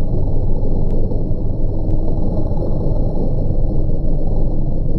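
CVR(T) Spartan FV103 tracked armoured vehicle on the move, its engine and tracks heard as a loud, steady, deep rumble.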